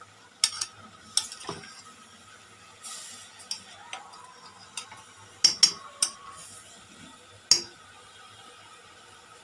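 A metal spoon clinking and scraping against a metal cooking pot as meat and vegetables are stirred. The clinks come at irregular intervals and have a short ring, the loudest a close pair about halfway through.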